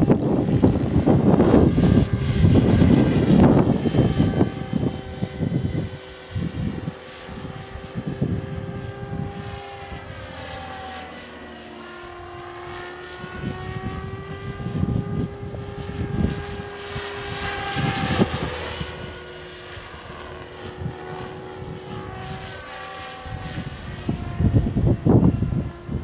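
CopterX 500 electric RC helicopter flying overhead: a steady whine from its motor and rotor that rises and falls in pitch as it manoeuvres. Strong wind gusts rumble on the microphone, loudest in the first few seconds and again near the end.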